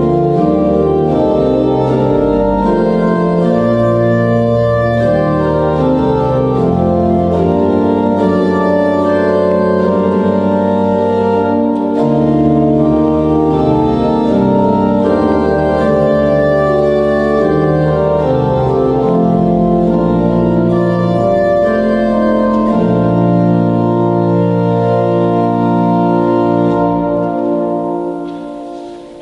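Organ music playing slow, sustained chords, fading out near the end.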